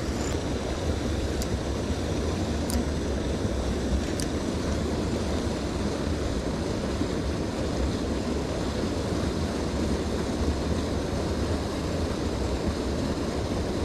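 Steady rush of water pouring over a small weir into a concrete irrigation channel, an even noise with a heavy low rumble.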